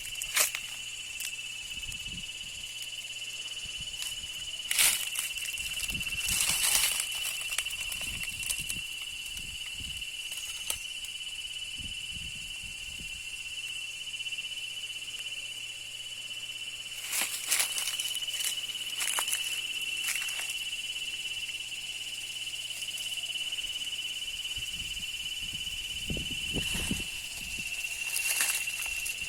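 A continuous high-pitched steady tone, with scattered rustling and crackling sounds on top.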